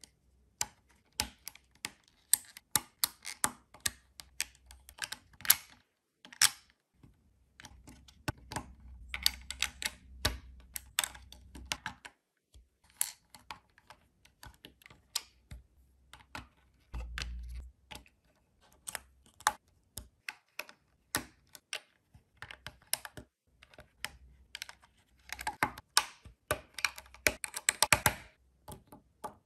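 Plastic LEGO bricks clicking and snapping as pieces are pressed onto a vehicle chassis by hand: quick irregular clicks in flurries, with short pauses between.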